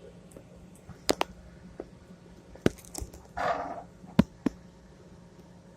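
A few sharp clicks and knocks of small plastic parts being handled and set down. About halfway through there is a short, rough half-second sound.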